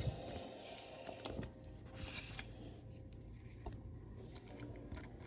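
Faint, irregular small clicks and scrapes from a metal padlock being handled, over faint background music.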